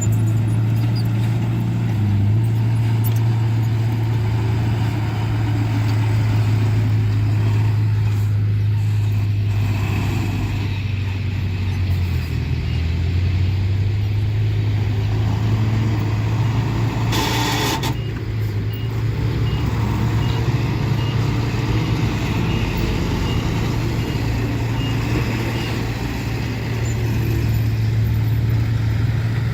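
Heavy diesel construction machinery (dump trucks and a bulldozer) running steadily with a deep engine hum. A short burst of hiss comes about seventeen seconds in.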